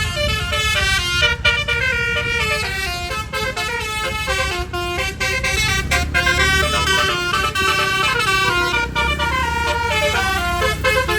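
Bus 'telolet' musical horn, a set of twelve roof-mounted trumpets run by an electronic module, playing a fast melody of quickly changing notes. A low engine rumble runs underneath.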